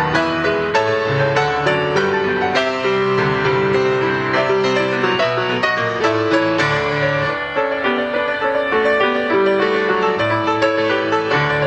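Grand piano played solo: chords and a flowing melody, with new notes struck continuously and held notes ringing under them.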